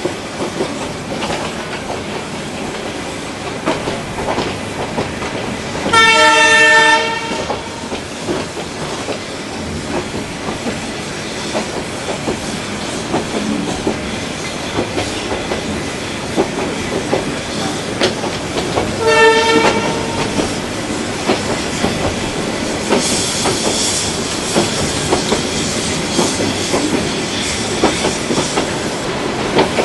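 A train running along the track, heard from aboard a carriage, with the clickety-clack of the rails. Its horn sounds twice: a louder blast of about a second roughly six seconds in, and a shorter one near twenty seconds. A rushing hiss joins the running noise about two-thirds of the way through.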